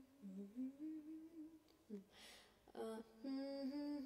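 A woman humming a slow melody alone, the opening of an old Tamil film song, in long held notes that step gently up and down in pitch. She takes an audible breath about two seconds in, then the humming resumes.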